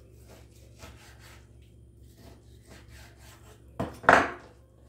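Kitchen knife sawing through raw meat on a wooden cutting board: a run of faint rasping strokes, then two louder knocks about four seconds in.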